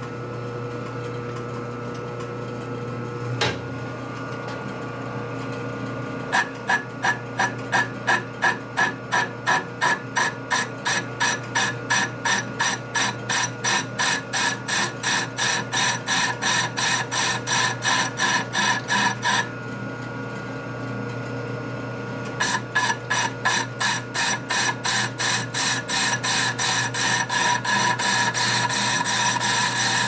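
Metal lathe running while a cutting tool skims a Harley-Davidson panhead rear brake drum. The tool scrapes about twice a second, once per turn, on the high spot of the out-of-round drum. The scraping stops for a few seconds midway, then resumes and turns into a nearly continuous cut near the end.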